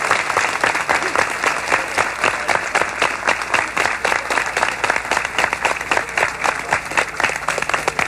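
Crowd applauding, many hands clapping irregularly, thinning out toward the end.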